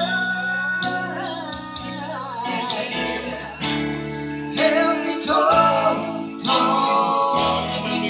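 A woman singing live into a microphone over a PA speaker, with a sustained accompaniment of guitar and a light, regular percussion beat.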